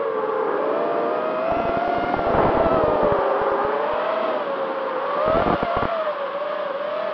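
Four Emax RS2205 2300KV brushless motors of an FPV racing quadcopter whining, the pitch wavering up and down as the throttle changes. Low buffeting comes in twice, around two seconds in and again about five and a half seconds in.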